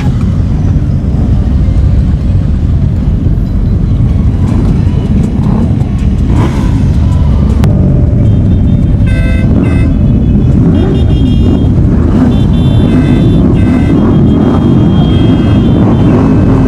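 Road-vehicle engines, most likely a group of motorcycles, rumbling loudly and steadily. Thin high tones sound over the rumble on and off in the second half.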